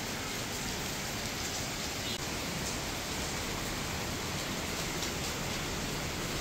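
Heavy rain falling in a steady hiss.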